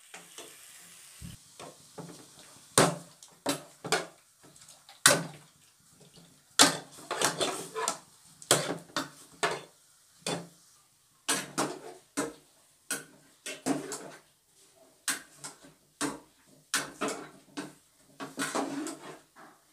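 A metal spoon scrapes and knocks against a steel cooking pot as chunks of raw chicken are stirred in oil. The strokes come irregularly, with short pauses between them.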